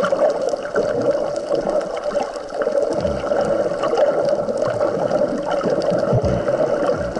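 Wave-stirred sea water over a coral reef heard underwater: a steady gurgling wash with many small clicks, and low surges about three and six seconds in.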